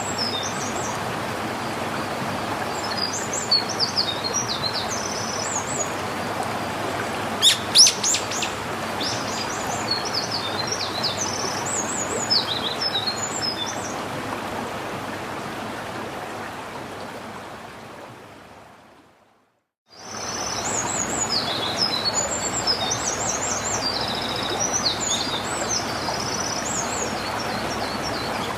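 Small songbirds singing repeated short, chirping phrases over a steady outdoor hiss, with two sharp, loud sounds about seven and a half seconds in. The sound fades out to a brief silence about two-thirds of the way through, then cuts back in with the birds still singing.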